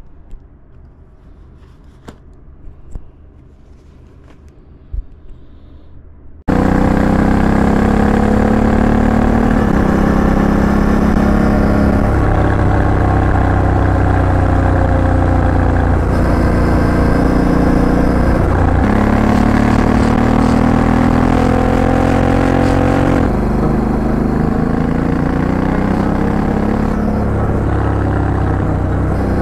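A few light clicks and knocks from a microphone being handled in a quiet room, then a sudden cut to a Honda Africa Twin CRF1100's parallel-twin engine running hard on the road, heard from a microphone on the back of the rider's jacket with rushing wind. The engine note climbs and breaks off several times.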